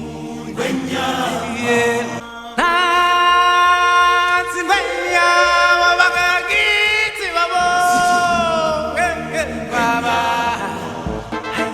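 Vocal music: voices singing long held notes with vibrato, with little or no instrumental backing.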